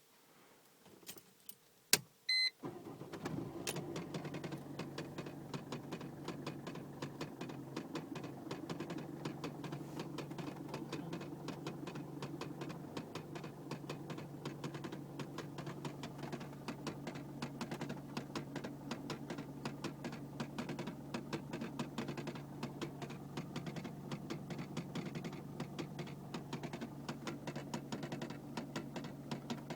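2001 Mercedes-Benz C220 CDI being started: a few clicks and a short beep, then about two and a half seconds in the 2.2-litre four-cylinder diesel fires and settles into a steady idle. Over the idle runs a rapid, continuous ticking from the dashboard, which appears at every start and goes on for about a minute; its cause is unknown to the owner.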